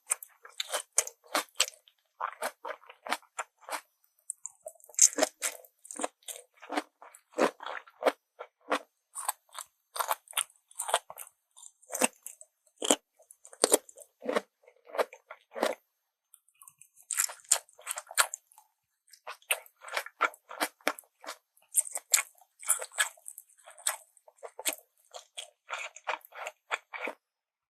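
A person chewing and crunching crisp food close to the microphone, in quick runs of crackling bites, with a short pause about halfway through.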